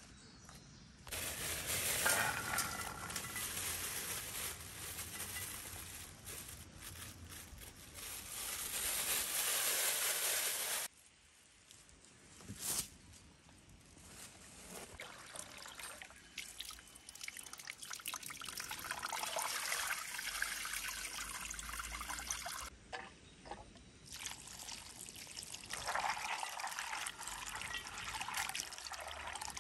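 Water trickling and pouring, in three stretches that begin and end abruptly.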